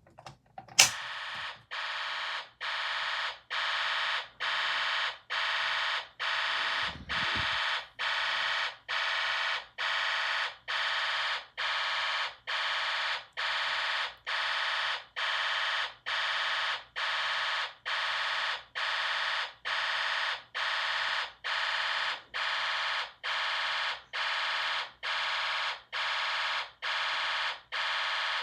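Fire alarm sounding a harsh, buzzing tone in even pulses, about three every two seconds, steady in level. It starts with a sharp click about a second in.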